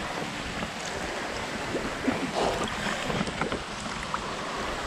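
Water lapping and sloshing right at a camera held at the water's surface, with small splashes and scattered clicks close to the microphone.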